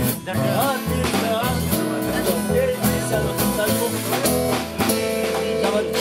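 A small band playing a song live on strummed acoustic and electric guitars, with low notes stepping underneath and a wavering melody line over them.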